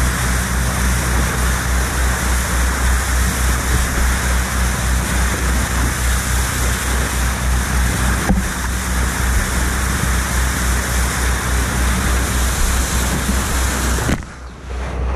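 Rushing, splashing water of a boat's bow wave, heard close to a bow-mounted action camera, with a steady low drone underneath. Near the end the sound drops and goes muffled for about a second as spray washes over the camera.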